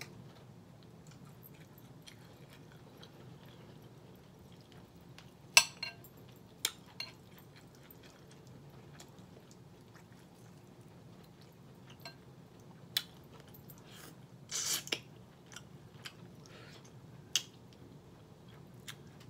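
Close-up eating sounds of smoked turkey wing and cabbage: wet chewing and mouth noises, with scattered sharp clicks and clinks of a fork against a glass bowl. The loudest click comes about five and a half seconds in, and a longer clatter comes near the middle. A low steady hum runs underneath.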